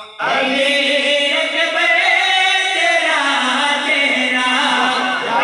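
A man chanting devotional verse in a sung style into a microphone and loudspeaker, starting abruptly and holding long, drawn-out notes.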